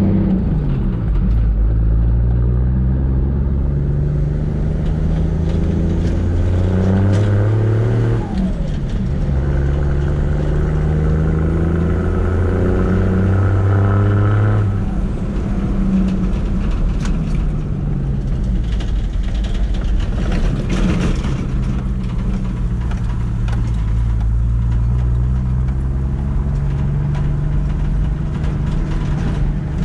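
Toyota Landcruiser 79 Series ute's engine heard from inside the cab while driving on a gravel road: the engine note climbs, drops at a gear change about eight seconds in, climbs again and eases off about halfway through, then runs on at a varying cruise. Tyre and road noise from the gravel runs underneath.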